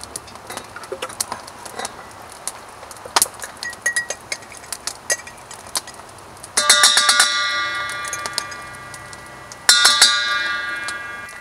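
A steel cooking pot knocked twice with a metal spoon, about three seconds apart; each knock rings out in several bell-like tones and fades slowly. Before that come soft wet plops and small clicks as thick chili is poured into the pot from a jar.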